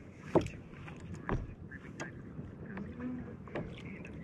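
Small waves slapping and knocking against a kayak hull on a choppy sea, with irregular sharp knocks, the loudest two near the start.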